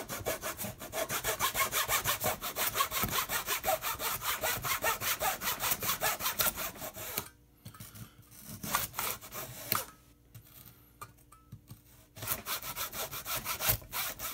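Zona razor saw cutting through an RC wing elevon in quick back-and-forth strokes, about four a second. Past the middle the sawing all but stops for about five seconds, with only a few light strokes, then resumes near the end.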